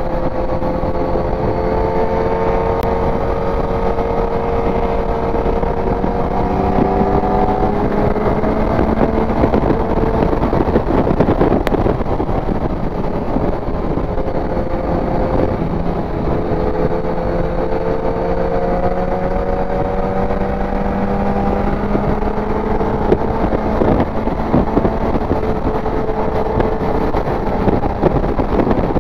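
Inline-four motorcycle engine under way, its pitch rising slowly, dropping off about halfway through, then climbing slowly again, with wind rushing over the microphone.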